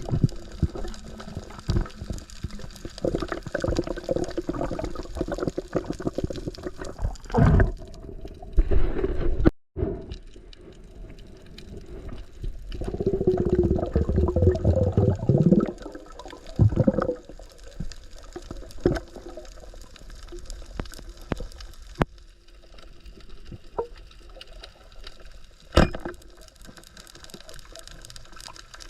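Water sloshing and gurgling close to the microphone, with scattered knocks and a louder surge partway through.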